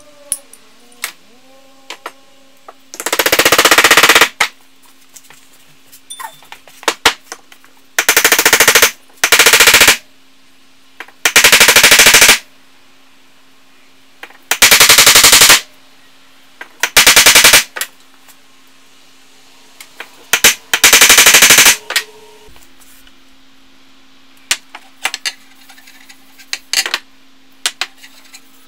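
Several loud bursts of very rapid knocking, each about a second long, from driving the axe head and glued wedge onto the hickory handle.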